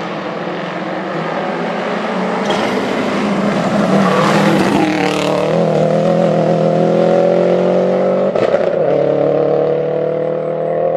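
Subaru Impreza GT Turbo rally car's turbocharged flat-four engine under hard acceleration as it passes close by, with a rush of noise as it goes past. The engine note then climbs steadily as the car pulls away, broken briefly a little past eight seconds by an upshift before climbing again.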